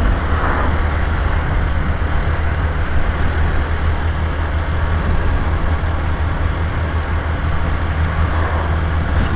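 Honda Titan 150's single-cylinder four-stroke engine running steadily as the motorcycle is ridden, with a constant low hum under rushing road and air noise.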